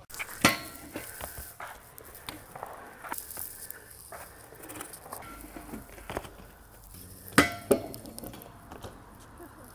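BMX bike knocking and rattling on the concrete of a skatepark: a sharp knock about half a second in, light taps and rattles through the middle, and two loud clacks close together near the end.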